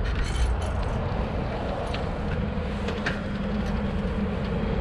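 Steady low rumble of wind on the microphone and tyres rolling while riding a bicycle, with a faint steady hum underneath and a few light clicks.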